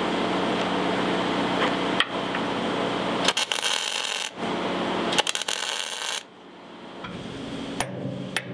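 MIG welder laying stitch welds on steel plate: a steady crackling sizzle in several bursts of one to three seconds, stopping about six seconds in. A couple of light hammer knocks on the steel follow near the end.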